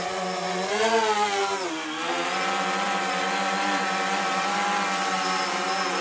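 DJI Phantom 3 quadcopter's propellers buzzing in flight: a steady multi-toned whine that swings up and then back down in pitch about a second in, then holds level.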